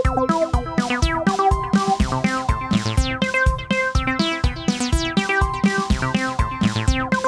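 Electronic background music: synthesizer notes over a steady drum-machine beat of about four strikes a second, with rising synth sweeps.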